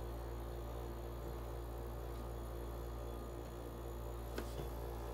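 Panasonic F-Y101BW dehumidifier's compressor running with its casing off, a steady low hum; the owner takes this resonance noise for a defect of the unit. A single sharp click about four seconds in.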